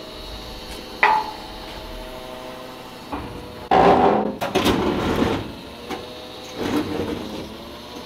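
A few knocks and clattering handling sounds over a faint steady hum: a sharp knock about a second in, a louder run of clatter and scraping about four seconds in, and a smaller one near the end.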